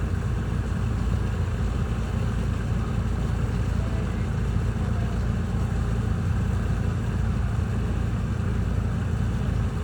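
Engine of a fast Amazon river passenger boat (lancha ajato) running steadily, a constant low drone with no change in speed.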